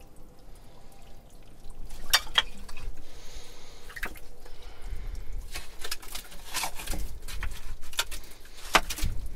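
Irregular clinks and knocks with wet, dripping sounds as old glass bottles are dug out of a privy pit.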